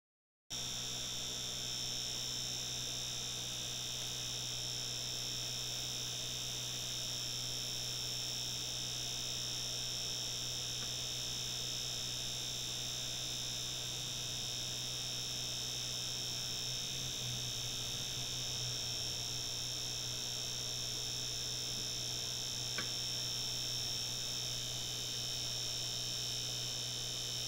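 Brushless DC computer fan, modified for higher speed, running flat out with a steady high-pitched whine over a low hum. One faint click near the end.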